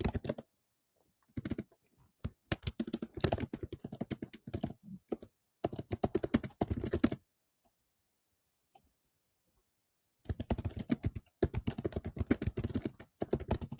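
Rapid typing on a computer keyboard, in several bursts of quick keystrokes with a pause of about three seconds midway.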